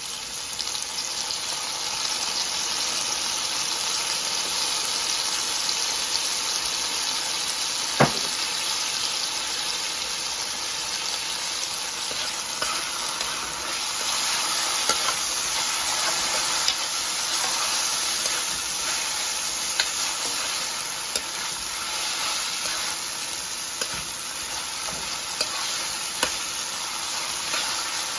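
Vegetables and soy sauce sizzling steadily in a frying pan while being stirred, the utensil knocking against the pan now and then, loudest about eight seconds in.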